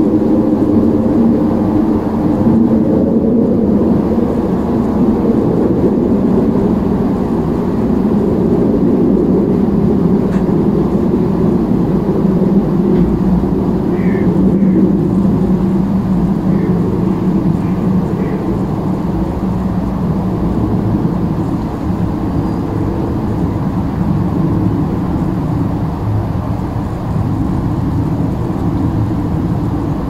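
Steady low mechanical rumble of engine noise, its pitch drifting slowly and easing off a little in the second half.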